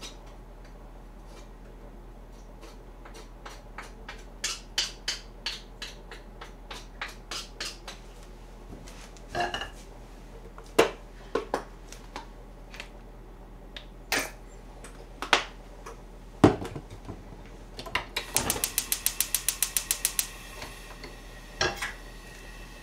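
Kitchen utensils, a bottle and a wooden spatula clicking and knocking on the counter and frying pan, with a few louder clunks. Near the end comes a rapid run of even clicks for about two seconds, typical of a gas hob's igniter, followed by a steady hiss as the burner lights.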